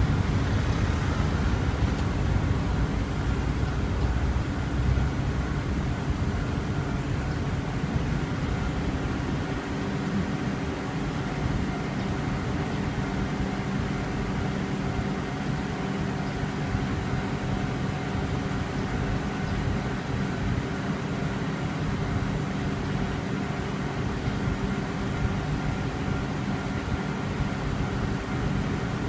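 Japanese level crossing warning alarm ringing steadily over a low rumble of vehicle traffic.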